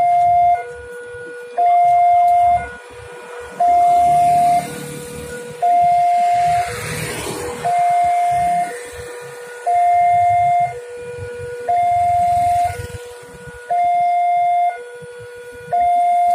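Railway level-crossing warning alarm: an electronic two-tone signal alternating between a louder higher note and a lower note, each held about a second. It sounds while the crossing barriers come down, warning of an approaching train.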